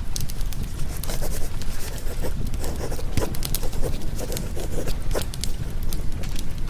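Fireplace crackling, with many sharp irregular pops and a denser run of crackle in the middle, over a steady low rumble of storm rain.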